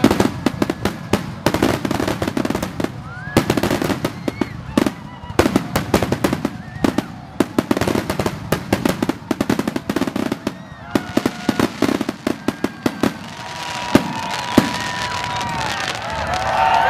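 Fireworks and firecrackers going off in a dense string of sharp bangs and crackles, with people's voices among them. About three-quarters of the way through the bangs thin to a couple of single reports, and a steady murmur of voices takes over.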